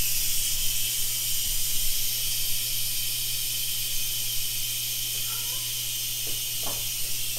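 Steam hissing steadily from the pressure-release valve of an Instant Pot Duo Plus 80 electric pressure cooker, set to venting for a quick release of pressure after a cook cycle.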